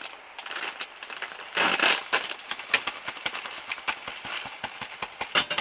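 Crinkling plastic bag of tapioca flour being slit open with a knife and emptied into a plastic tub: a stream of sharp crackles, with a louder rustling burst about one and a half seconds in and another near the end.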